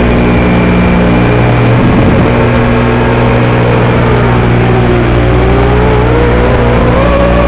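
Analog FPV video-transmitter audio from a quadcopter's camera microphone, full of a loud steady buzzing hum with a whine that dips and rises in pitch over it. The hum is the known fault of a transmitter sending mono audio to a FatShark receiver module that expects stereo.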